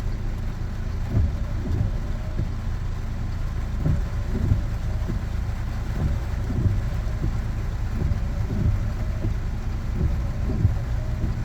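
Road noise inside a moving car's cabin: a steady low rumble from the engine and tyres, with occasional soft bumps.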